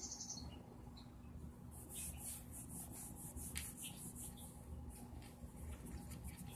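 Faint, irregular scratching and rubbing as a cat rolls on its back and paws at a wooden tabletop, a quick run of scratchy swishes through the middle, over a steady low hum.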